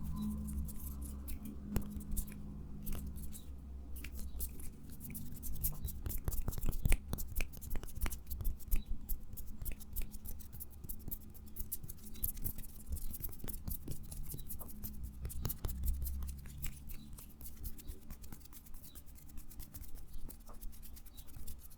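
Rapid, irregular crisp clicks and scratching taps close to the microphone, an ASMR trigger sound.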